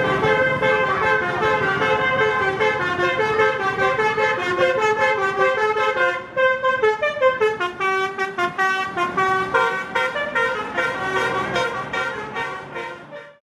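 Basuri musical bus horn (a 'telolet' horn) playing a melody of stepped notes. From about six seconds in the notes become short and quick, and the horn cuts off suddenly near the end.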